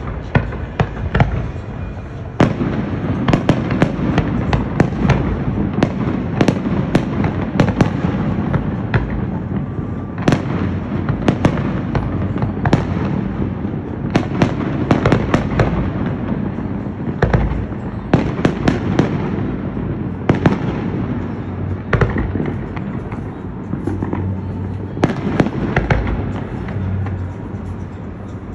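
Fireworks display: sharp bangs of bursting aerial shells in quick, irregular succession over a continuous low rumble.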